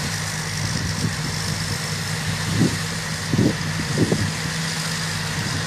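Combine harvester's diesel engine running steadily, with a steady high whine over it and a few brief low bumps about halfway through.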